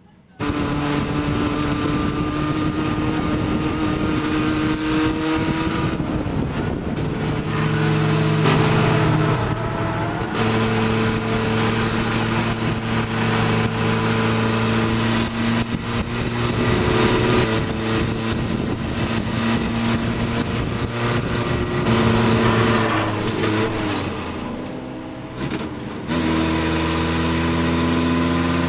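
Chevy LUV race truck's engine heard from inside the stripped cab, running hard on track. Its pitch steps up and down with throttle and gear changes over a steady rush of wind and road noise. Near the end it eases off for a couple of seconds, then pulls again.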